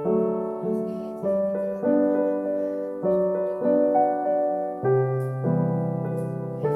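Background music: a slow, gentle piano piece, with a new note or chord struck about every half second to a second and left to ring.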